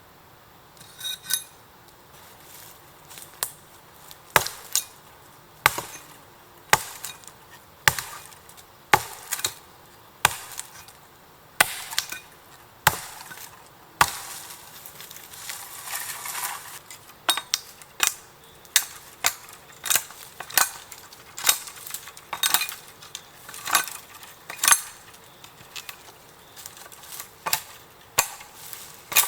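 Repeated sharp chopping strikes on wood, about one a second and coming a little faster in the second half.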